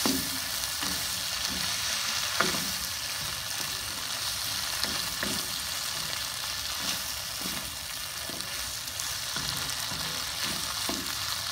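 Pork belly and vegetables sizzling steadily in a hot wok, stirred with a wooden spoon that scrapes and knocks against the pan every second or so.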